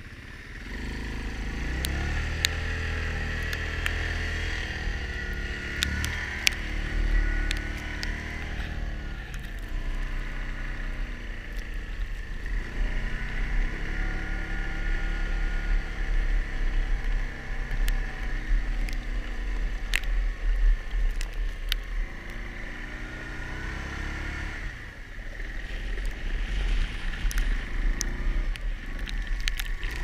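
Yamaha Grizzly ATV on tracks, its single-cylinder engine revving up and down repeatedly as it ploughs through deep snow, easing off twice before pulling hard again near the end. A steady high whine runs underneath, with occasional sharp clicks.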